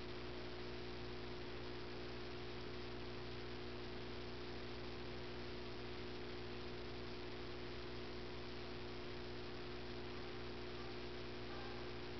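Steady electrical hum with a few held low tones under a constant hiss, with no distinct events.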